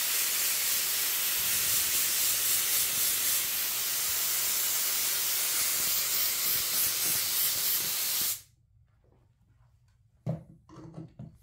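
Air spray gun hissing steadily as it sprays upholstery glue over a paper pattern and foam, cutting off sharply about eight seconds in. A light knock and a little handling follow near the end.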